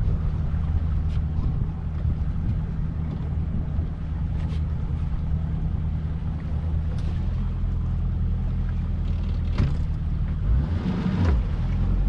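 Small fishing boat's engine idling steadily as the boat eases along a dock, with a brief dip and recovery in engine pitch near the end and a few faint knocks.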